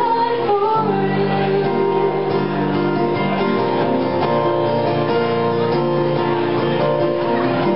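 Live acoustic guitar strumming a song's accompaniment while a woman sings over it.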